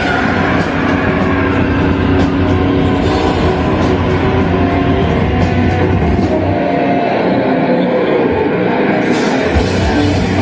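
Nu metal song played by a full band with distorted guitars. The low end drops out for a couple of seconds about three-quarters of the way in, then the full band comes back in near the end.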